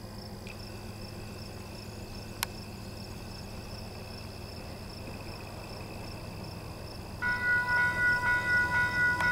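Crickets chirring steadily, with one sharp click a couple of seconds in. About seven seconds in, a loud railroad warning sound starts suddenly as the empty coal train approaches: several high tones pulsing two or three times a second.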